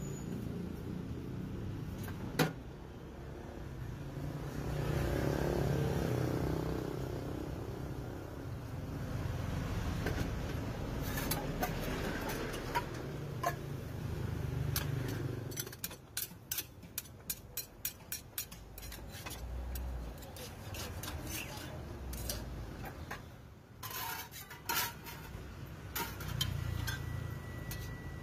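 Metal lids, cast-iron pans and utensils clinking and tapping at a street pancake stall, with a quick run of sharp taps in the middle, over a steady rumble of street traffic.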